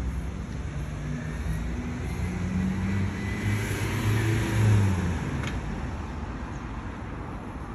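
A motor vehicle passing, its engine hum swelling to loudest about four to five seconds in and then fading into steady traffic rumble.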